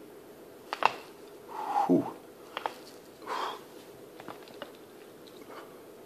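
A man cracking his own neck: a sharp pop about a second in, a short falling groan, then a few smaller clicks and pops.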